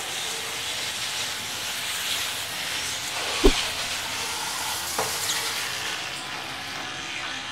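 Water jetting from a 12V portable pump's hand spray gun onto a motorcycle, a steady hiss of spray, with a brief knock about three and a half seconds in.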